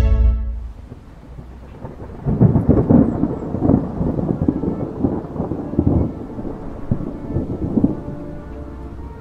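Thunderstorm sound effect: thunder rumbling with several loud swells over falling rain, starting about two seconds in after a short lull.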